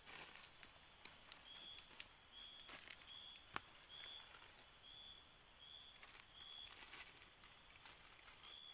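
Night-time insect chorus: a steady high-pitched buzzing, with one insect giving a short chirp a little more than once a second. A few faint clicks are also heard.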